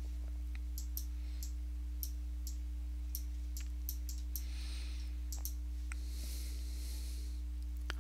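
Stylus tapping and stroking on a tablet's writing surface while numbers are written: irregular sharp clicks about once or twice a second, with two short scratchy strokes in the second half, over a steady low hum.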